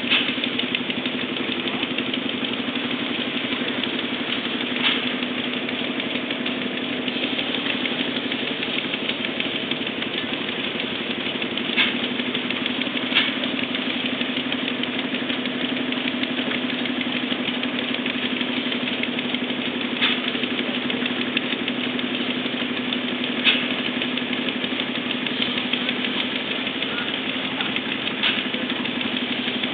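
An engine running steadily at one even speed, a constant hum, with about seven sharp clicks or knocks scattered through it.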